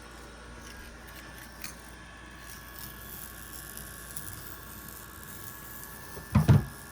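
Faint handling and rustling of parts over a low steady room hum, then two loud knocks in quick succession near the end, typical of a recording phone being handled.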